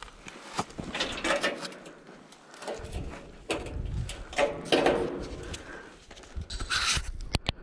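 Irregular scuffing, scraping and knocking of shoes and gloved hands on wooden boards and a sheet-metal edge, with clothing rustling, as a person clambers down; the longest scrape comes near the end.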